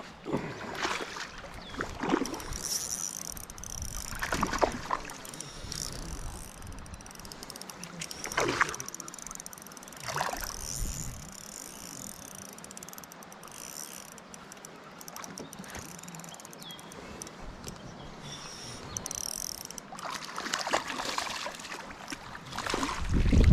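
Irregular bursts of water splashing as a freshly hooked trout is played at the surface, over steady wind noise on the microphone.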